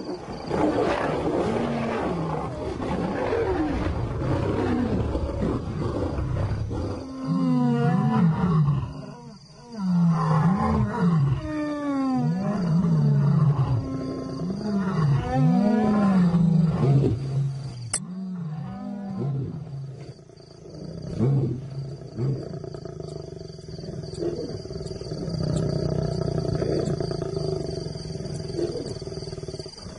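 Lions fighting, growling and roaring. Rough, continuous growling gives way about seven seconds in to a run of loud roars that rise and fall in pitch, about one a second. These die down after a sharp click near the middle into lower, quieter growling.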